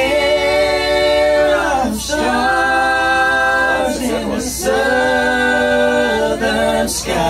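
A small vocal group singing in close harmony without instruments, holding long sustained chords in three phrases, with brief breaths between them about two seconds and four and a half seconds in.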